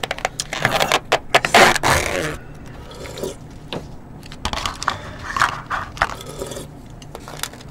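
Eating at the table: metal spoons scraping and clicking against plastic tubs of soup, with soup sipped off a spoon. A louder scraping stretch comes about two seconds in, then scattered clicks.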